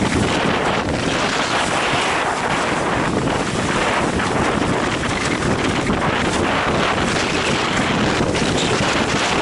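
Heavy wind buffeting a camera microphone on a windsurf rig, mixed with the rush and slap of the windsurf board skimming over choppy water. Loud and steady throughout.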